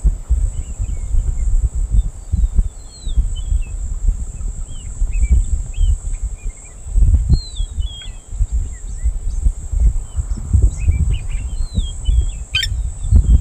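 Wild birds chirping: many short calls gliding up and down, scattered through the whole stretch, with a steady high-pitched hiss behind them. Under them runs a low, uneven rumble that swells and fades and is the loudest part, and there is one sharp click near the end.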